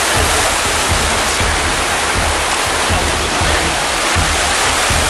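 Loud, steady rush of whitewater as the creek below Shannon Falls pours and tumbles over boulders.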